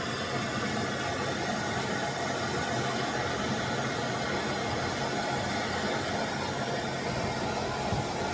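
MAPP gas torch burning with a steady hiss, heating a steel chisel to melt down and smooth plastic weld material.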